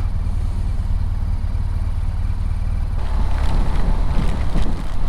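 Motorcycle engine running at low revs, a steady low hum; about three seconds in, the sound grows fuller and noisier.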